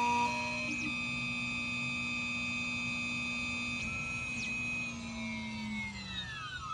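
Key-cutting machine's cutter motor whining steadily, then spinning down with falling pitch from about five seconds in as the key cut finishes.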